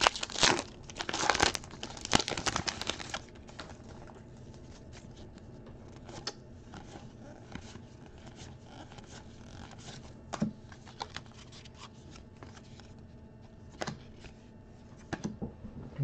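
A trading-card pack wrapper being torn open and crinkled for the first three seconds or so, then the soft sliding and a few sharp flicks of cards being leafed through by hand.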